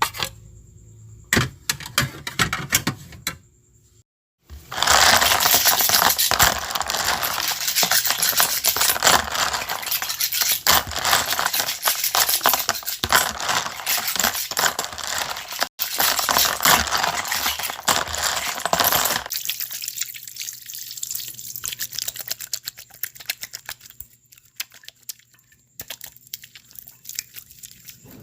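A few scattered clicks, then water running and splashing for about fifteen seconds, thinning out to scattered drips near the end.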